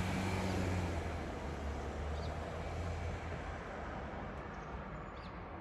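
Odakyu 60000-series MSE Romance Car electric train pulling away, a low rumble that slowly fades as it goes.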